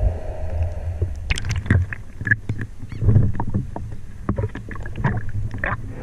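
Water splashing and sloshing around a handheld camera on a pole as a snorkeler comes up through the surface beside a boat, with irregular splashes over a low steady rumble.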